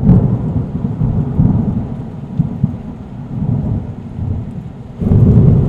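Loud, uneven low rumble of seaside wind and surf on the microphone, swelling again near the end.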